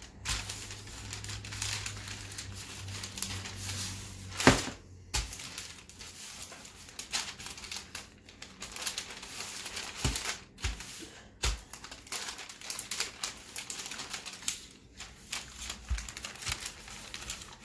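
Wooden rolling pin rolling cookie dough between sheets of baking paper: the paper crinkles and rustles in quick, irregular crackles, with a few knocks, the loudest about four and a half seconds in.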